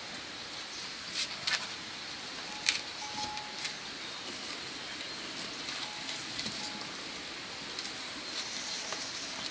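Small wood fire crackling under a stone stove used to smoke pork, with a steady hiss. A few sharp pops and snaps come in the first four seconds.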